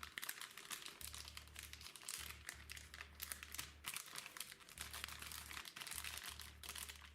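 Crinkly packaging being handled, a dense run of small crackles and rustles, over a low hum that cuts in and out several times.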